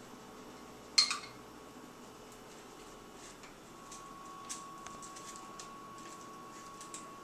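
Metal lid of a glass jar of Ragu pizza sauce being handled: one sharp click with a short ring about a second in, then a few faint ticks as the lid is worked by hand.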